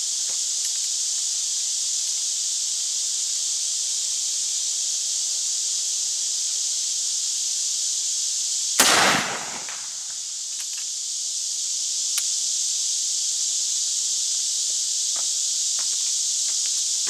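A single shot from a reproduction 1847 Springfield Dragoon Carbine, a smoothbore muzzleloader firing a round ball, about nine seconds in: one sharp report that rings out for about a second. A steady high insect buzz runs underneath.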